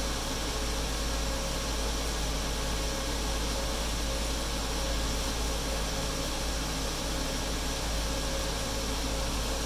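Steady whirring hiss over a low hum, like a fan running, unchanging throughout with no clicks or other events.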